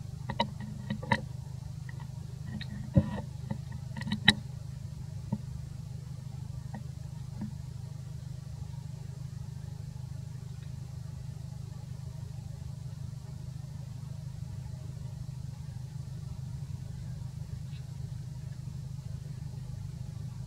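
A steady low hum, with a handful of sharp clicks in the first five seconds.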